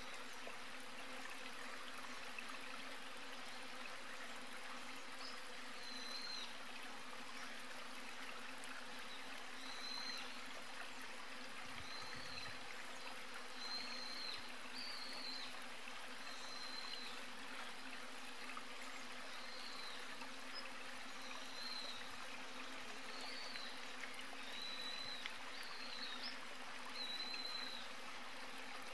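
Steady outdoor background hiss, with a small animal's short high chirp repeating every one to two seconds.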